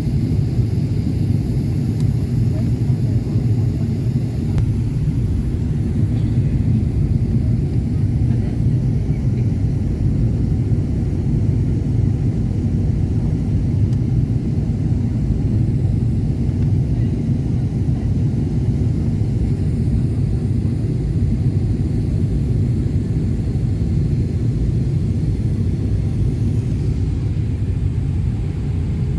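Steady low rumble inside the cabin of a Boeing 777-300ER in flight: airflow noise and the GE90-115B turbofans holding an even thrust setting.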